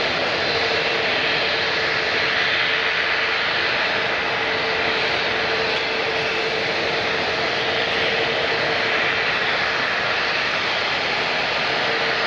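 Jet airliner engines running at a steady level: a loud, even rush of noise with a steady humming tone through it.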